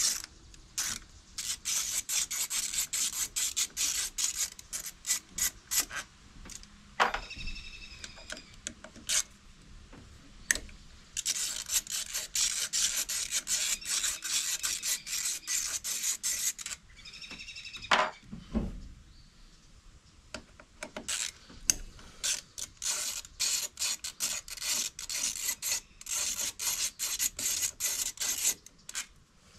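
Hand ratchet clicking in fast runs as the 8 mm bolts of a Honda Dio AF18 scooter's transmission cover are backed out: three long spells of clicking with pauses between, and a short ringing note twice.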